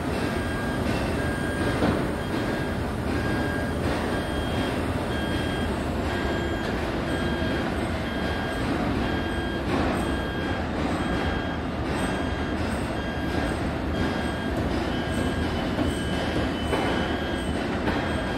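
Mobile crane at work: its engine runs steadily, with an electronic warning beeper giving short, evenly spaced beeps, a little under two a second.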